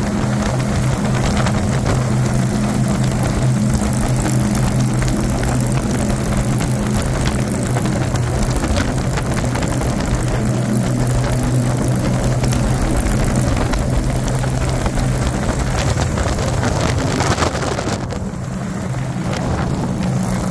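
Vehicle engine droning at a steady speed, with wind and road noise over it. Near the end the wind noise drops away briefly and the level dips, then it comes back.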